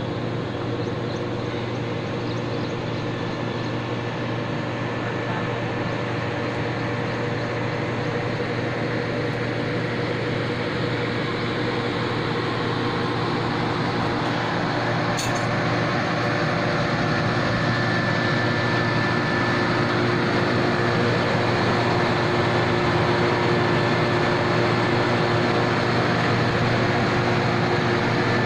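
Commercial heat pump running: a steady mechanical hum and rush with several held tones, growing slightly louder over the second half, with one brief tick about fifteen seconds in.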